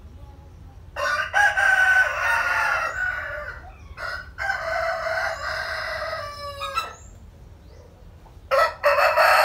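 Roosters crowing: three long crows one after another, starting about a second in, about four seconds in, and near the end. The middle crow trails off in a falling tone.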